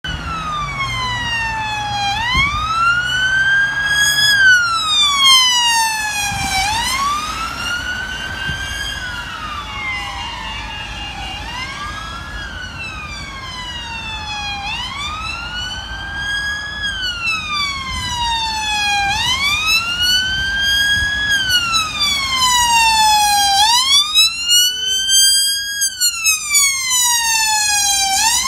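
Police car sirens on the wail setting: a slow rising and falling tone, each sweep climbing for about two seconds and falling for about two. A second siren overlaps out of step with the first through the middle stretch, and the sirens grow louder near the end over low traffic noise.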